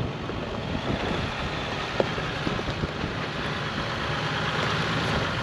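Four-wheel-drive vehicle's engine running steadily as it drives slowly along a rocky trail, with a constant noise of tires and a sharp knock about two seconds in.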